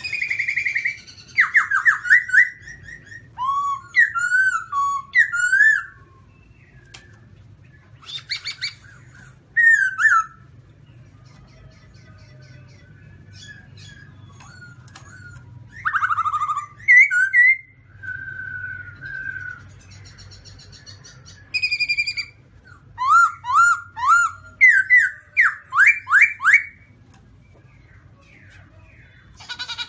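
Black-throated laughingthrush (Garrulax chinensis) singing: loud phrases of quick whistled notes that slide up and down, given in several bouts with pauses of a few seconds between them.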